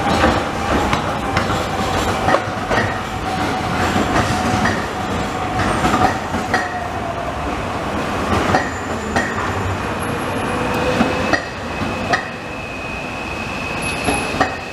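Zurich Tram 2000 trams rolling past on street track, their wheels clicking and knocking irregularly on the rails. A steady whine slowly falls in pitch over the first two-thirds, and a high, steady wheel squeal sets in about two-thirds of the way through.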